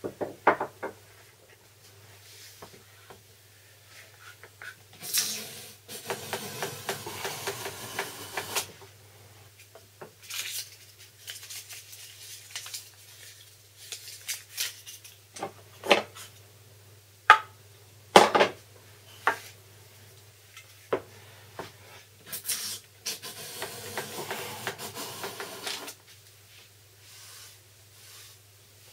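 Japanese kanna being set and tested on wood: sharp taps of a small hammer adjusting the blade, near the start and again in a cluster a little past the middle, and two stretches of plane strokes shaving the wood, each about three seconds long, while the depth of cut is checked on scrap.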